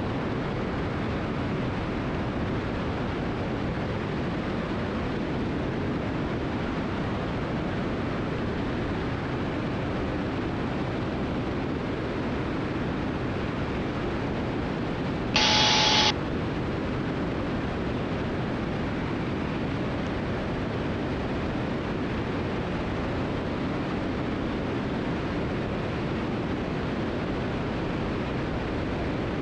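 Steady engine and airflow noise inside the cabin of a Cessna T310R twin in flight. About halfway through, a short louder burst with a tone in it lasts under a second.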